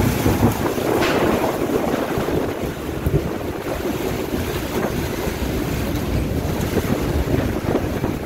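Strong storm wind gusting and buffeting the microphone, with rain falling.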